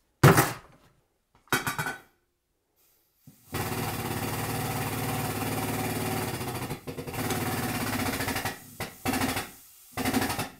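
A metal clank and a short rattle as the wrench is set back on the bolt in the test rig. Then a hydraulic pump runs steadily for about five seconds, followed by several shorter bursts as pressure builds on the torque rig.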